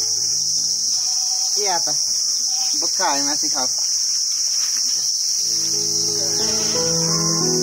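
Insect chorus, crickets trilling steadily in one continuous high-pitched buzz.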